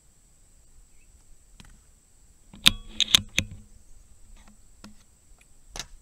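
A quick run of four sharp metallic clicks and knocks about halfway through, followed by a single fainter click near the end. They come from the .25 Seneca Eagle Claw PCP air rifle being handled after a shot string.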